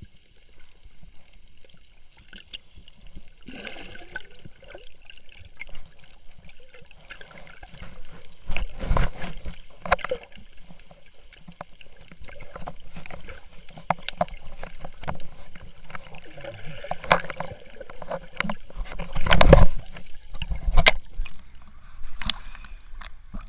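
Water sloshing and gurgling, broken by irregular knocks and bumps, with louder ones around the middle and near the end.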